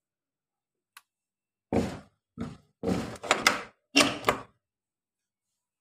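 A single click, then a quick series of five or six thuds and knocks over about three seconds as a wooden door is pushed open and swung shut.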